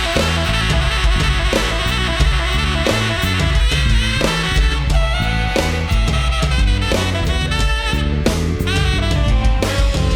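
Live rock band playing an instrumental break between vocal lines, with a drum kit under a bending lead melody.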